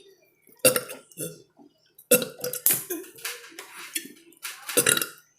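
Several loud burps in a row, worked up by gulping water, with the longest running about a second.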